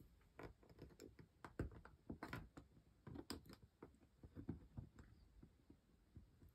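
Faint, irregular small clicks and taps of an LED lead being worked into a solderless breadboard with needle-nose pliers.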